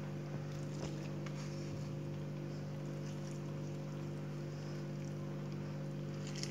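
A steady low machine hum of several held tones, with a few faint soft clicks and squelches from hands pushing herb-and-meat stuffing into a lamb's spleen.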